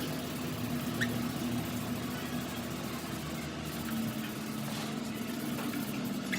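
Wet sanding pad rubbed back and forth by hand across a plastic headlight lens, an even hiss, over a steady low hum.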